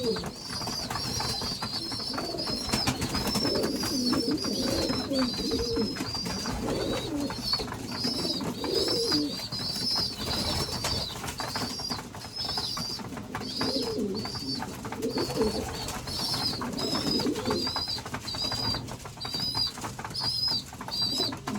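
Young pigeons (squeakers) begging food from their mothers, giving a steady string of thin, high squeaks, over the low cooing of adult pigeons in the loft.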